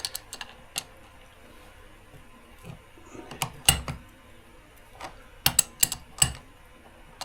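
Irregular metal clicks, taps and clinks of hand tools and parts being handled, coming in small clusters with pauses between.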